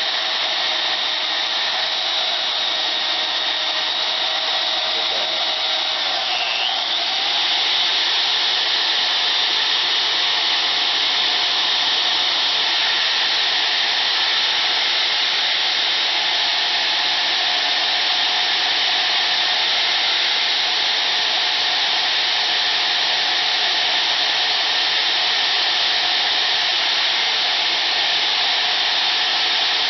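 DeWalt DWM120K portable bandsaw running steadily with a high whine. About six seconds in the pitch briefly dips, then the saw runs on a little louder.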